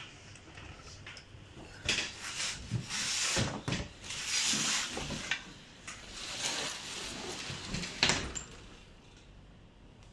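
Rustling and crinkling of plastic packaging as parts of a new mountain bike are unwrapped and handled, in irregular bursts with scattered clicks and a sharp knock about eight seconds in.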